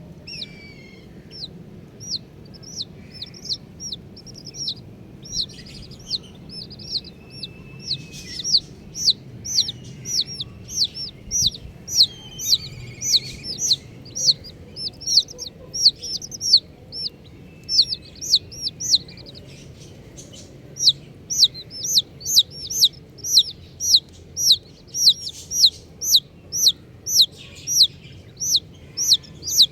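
Baby chicks peeping: a steady run of short, high, falling notes, about two to three a second, with a brief pause about two-thirds of the way through.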